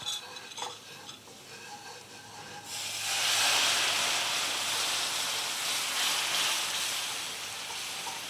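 A silicone whisk ticks faintly against a stainless steel skillet of cooked shallots, garlic and flour. About three seconds in, a strong sizzling hiss starts suddenly and keeps going as beef broth is poured into the hot roux and whisked in.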